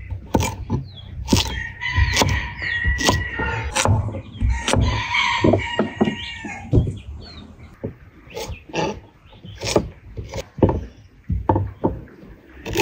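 A knife chopping carrots on a wooden cutting board, sharp knocks about once a second. A rooster crows twice in the first half, each crow long and held.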